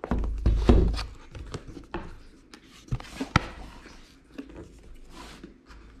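Cardboard packaging being handled and opened by hand: dull thumps against the table in the first second, then light taps, clicks and scrapes of the box and its lid.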